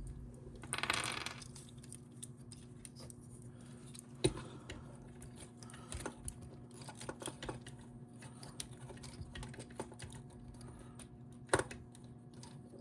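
Plastic parts of a Transformers Optimus Prime figure and its DNA DK-15 Jetwing jetpack clicking and tapping as the jetpack is fitted back on. There is a brief scraping rustle about a second in and louder single clicks about four seconds in and near the end.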